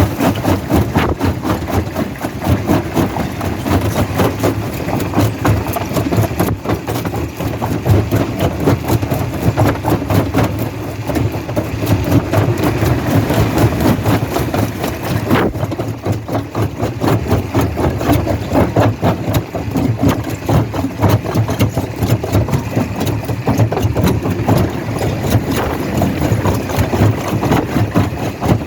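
Rock-crushing machinery running: a steady heavy engine drone under a constant rapid clatter of knocks as rock is broken.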